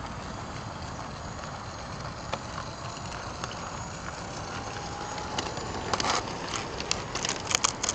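LGB garden-scale model train running along outdoor track: a steady hiss with a faint, slightly rising whine about halfway through. Sharp clicks and ticks grow more frequent in the second half.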